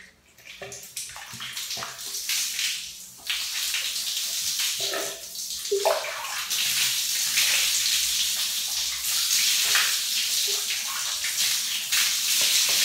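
Water splashing as it is poured from a plastic dipper over a bent head of hair, rinsing out hair dye. Splashes come intermittently at first, then the water runs in a steady, loud stream from about three seconds in, with a few small knocks.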